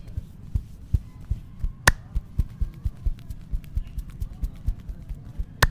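Hand percussion massage: palms thumping rhythmically on the body about three times a second, with a sharp snap about two seconds in and another at the end.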